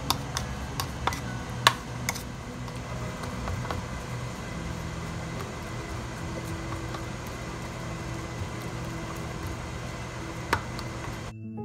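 A utensil stirring shredded cheese and egg in a bowl, clinking sharply against the bowl several times in the first couple of seconds and once more near the end, over a steady hum. Music starts just before the end.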